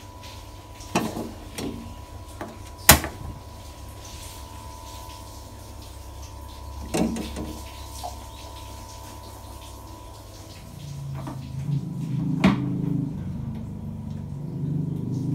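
Kitchen handling sounds: a few sharp clicks and knocks, the loudest about three seconds in, over a low steady hum. From about ten seconds in there is a busier, lower clatter of things being handled.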